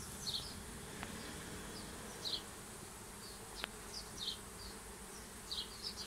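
Swarm of thousands of honeybees buzzing as they fly around and pour into a bait hive box: a steady low hum. Short high chirps recur about every second, and there is a faint click about three and a half seconds in.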